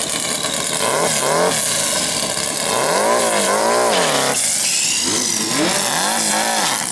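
Turbocharged air-cooled VW Beetle drag-race engine revved up and back down three times in quick throttle blips, its pitch rising and falling with each.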